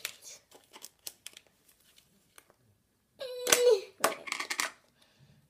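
Hands pulling apart and pressing Play-Doh, giving small scattered clicks and tearing sounds, with a short vocal sound about three and a half seconds in and a quick crackly burst of handling just after it.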